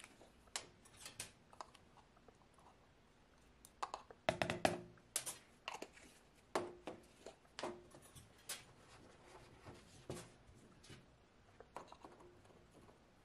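Scattered light clicks and taps of small plastic dye jars, a jar lid and thin metal tools being handled on a stainless steel counter, busiest about four to five seconds in.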